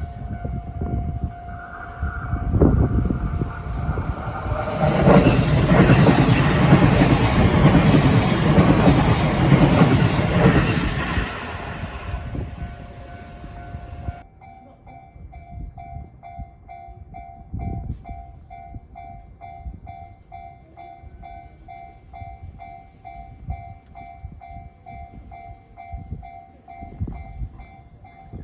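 A train passes a Japanese level crossing while the crossing's warning bell rings. The train noise builds, is loudest for several seconds, then fades. About halfway through, the sound switches abruptly to a crossing bell ringing in steady, even pulses over a lower rumble.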